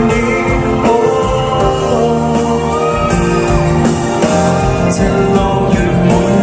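A Thai love song: a sung vocal line over continuous backing music.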